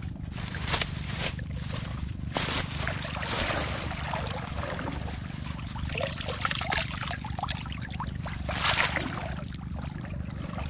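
Shallow lake water sloshing, trickling and dripping as hands grope along the bottom for snails, with a few louder splashes, the biggest late on. A steady low rumble runs underneath.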